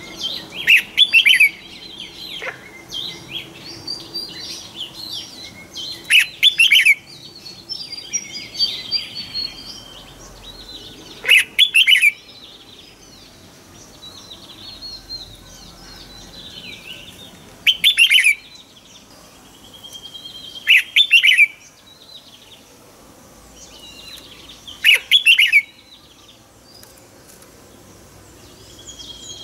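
Red-whiskered bulbul singing: six loud, short warbled phrases, one every four to six seconds, with fainter chirping and trills between them.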